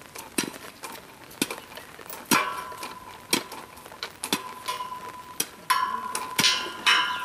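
Sharp metallic clinks of metal striking metal, about one a second and closer together near the end, each followed by a brief ringing tone.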